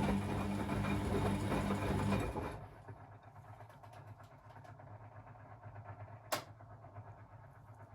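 Beko WA 1050 washing machine's motor running with a steady hum, then cutting out suddenly about two and a half seconds in, leaving a faint low hum. A single sharp click comes a few seconds later.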